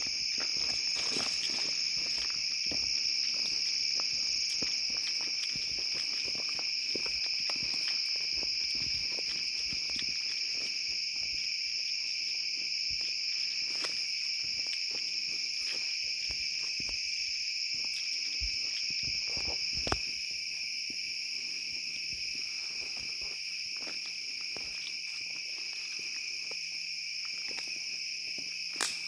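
Steady, unbroken high chorus of night insects, with scattered footsteps and rustles through brush. There is a sharp knock about twenty seconds in and another just before the end.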